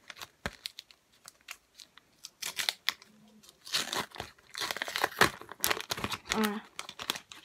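A sticker pack being torn open by hand, its wrapper crinkling and tearing in several spells of crackling, most of them in the second half.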